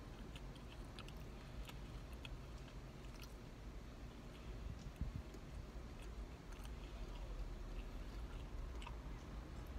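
A person chewing a mouthful of a plant-based burger: many small scattered mouth clicks over a steady low hum, with one soft thump about five seconds in.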